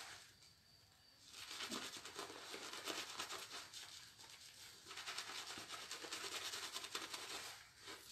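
Shaving brush scrubbing lather over a bearded face: quick, bristly swishing strokes in stretches, with short pauses about a second in, around the middle and near the end.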